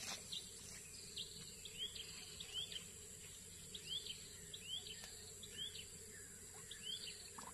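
A bird repeating a short rising-and-falling chirp about once or twice a second, over a steady high-pitched insect drone.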